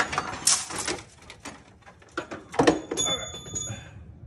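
Clattering and knocking of engine parts and tools being handled over a stripped engine block, with a clunk about two and a half seconds in followed by a brief high metallic ring.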